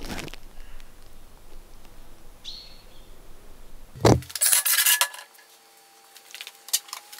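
Steel clinking and scraping on a steel welding table as a box-section tube and base plate are handled: a scrape at the start, a short high squeak about two and a half seconds in, then a loud clatter of metal about four seconds in, followed by lighter clinks.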